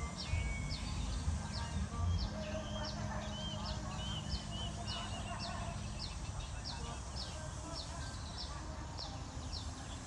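Birds calling, one giving a short high chirp over and over, about two or three times a second, over a low diesel-locomotive rumble that fades away in the first two seconds.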